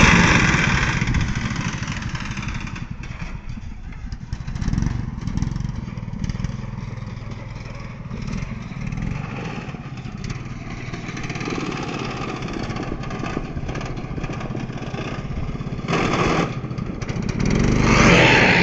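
Riding lawnmower engine running under way. It is loud at first, fades over the first few seconds, and grows louder again near the end.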